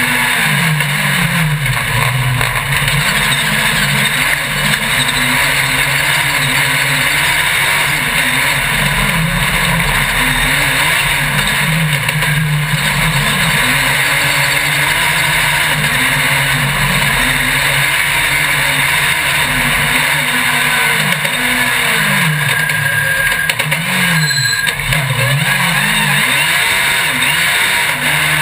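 Onboard sound of a small racing vehicle's engine at speed, its pitch repeatedly dropping and rising again as it slows for bends and accelerates out, under constant loud wind rush on the camera.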